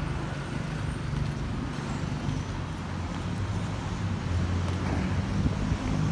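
Street traffic: motor vehicle engines running nearby, a steady low hum over a general noise of the road.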